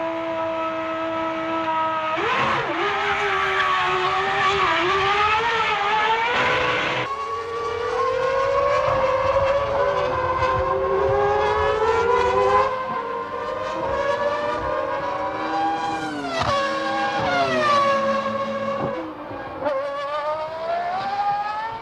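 1996 Formula One cars' high-revving racing engines at full race pace, their pitch climbing through the gears and dropping sharply on downshifts several times, with more than one car's engine heard at once.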